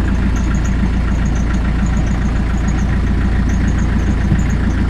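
Narrowboat's Beta Marine diesel engine running steadily at tick-over, about 800 rpm.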